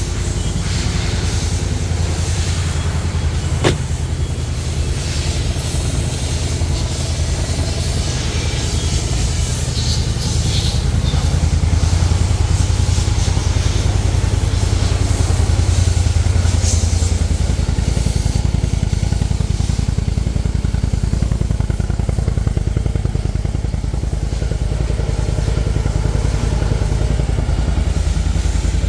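Can-Am Maverick X3 side-by-side engine running continuously under way, a low steady rumble that grows heavier for several seconds past the middle and then eases. A single sharp click about four seconds in.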